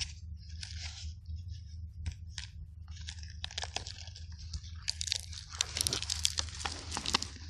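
Gloved hands scraping and pulling at loose soil and debris, a run of crunching and crackling that is sparse at first and turns dense and louder about halfway through.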